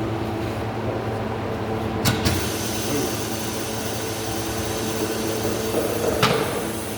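Tire changer machine in a workshop, with a steady mechanical hum underneath. A sharp clack about two seconds in is followed by a hiss of air that keeps going, and another clack comes near the end.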